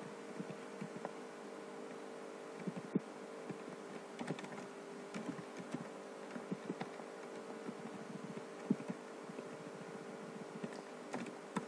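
Computer keyboard typing: irregular, quick keystrokes over a steady faint hum.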